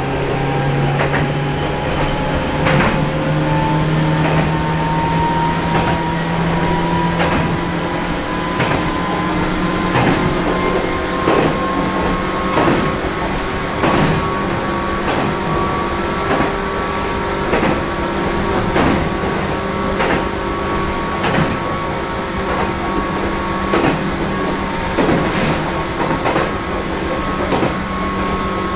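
Toyama Chiho Railway 14760-series electric train running, heard from inside the car. The whine of its externally fan-cooled Toyo Denki TDK-8205A traction motors rises slowly in pitch over the first dozen seconds as the train gathers speed, then holds steady. A click from the rail joints comes about every second and a half.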